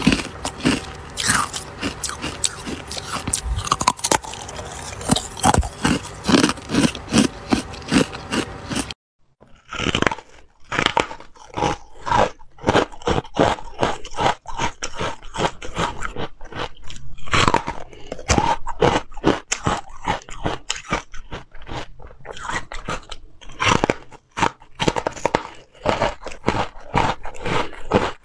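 Crunchy bites and chewing of white carbonated ice, each bite a sharp crackling crunch. For the first several seconds, the frozen blocks are handled in a steel pan, with dense scraping and clicking.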